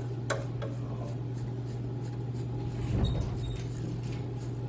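A few light clicks and handling noises as the slide cap is screwed back onto a snowmobile carburetor, over a steady low hum. There is one sharp click shortly after the start and a brief low rumble about three seconds in.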